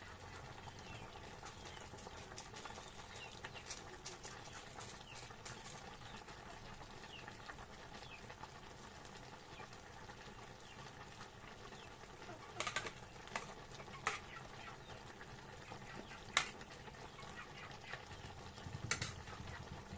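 Quiet cooking scene: a few sharp clicks of a utensil on a pot or pan over a steady low hum, with faint chirping of birds or chickens throughout.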